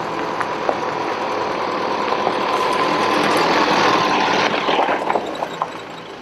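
A car driving over a gravel track, engine and tyre noise growing louder and then falling away about five seconds in, with a few sharp clicks of stones.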